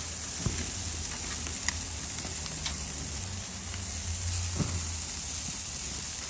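Beef burger patties sizzling on a gas grill's grates: a steady hiss over a low hum, with a few sharp pops as fat from the meat drips and makes the flame flare up.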